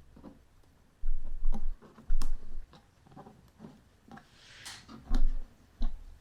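Scattered small clicks and ticks as the little retaining clips on the back of a flag display case are turned, with a few dull bumps from the case being handled.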